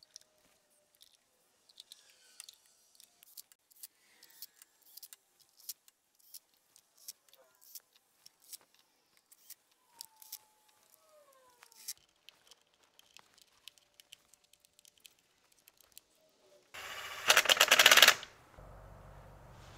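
Faint clicks and small squeaks of engine parts being handled, then about 17 seconds in a cordless impact driver runs in a short loud burst, driving a fastener on the engine's valve cover, followed by a low steady hum.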